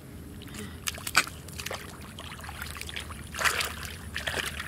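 Hands and bare feet splashing and squelching in shallow muddy pond water while groping for fish. There are a few short sharp splashes, the loudest about a second in, and a longer splashy stretch about three and a half seconds in.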